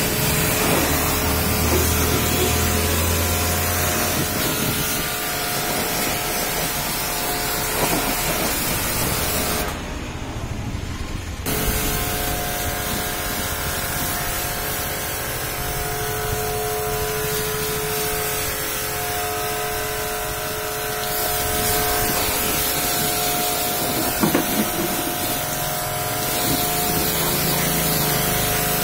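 Electric pressure washer running with a steady motor whine, its high-pressure jet hissing and splashing against a car's body panels and running board. About ten seconds in the spray stops for a second or two, then starts again.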